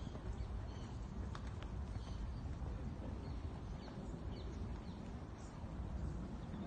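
Faint hoofbeats of a French saddle pony stallion cantering on a sand arena, under a steady low rumble, with a few short bird chirps.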